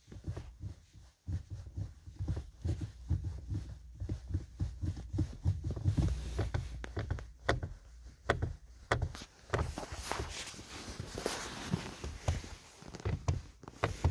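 Winter boot soles working a car's brake and accelerator pedals: an irregular run of dull thumps, then sharper clicks and knocks with some rustling of the boots' quilted fabric.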